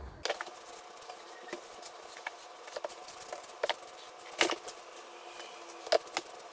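Paintbrush being loaded in a paint cup, then brushed along wooden door casing: soft bristle brushing with scattered light clicks and taps.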